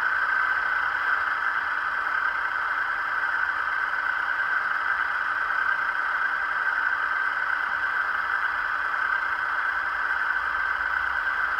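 ESU DCC sound decoder in a TOMIX HO-scale DF200 diesel locomotive model playing a steady diesel engine idle through the model's small speaker, with little bass.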